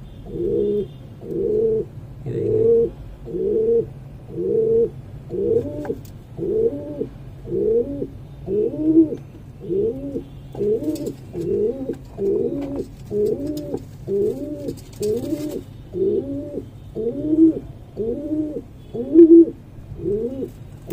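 Domestic pigeon cooing over and over, about one coo a second, each coo rising and falling in pitch.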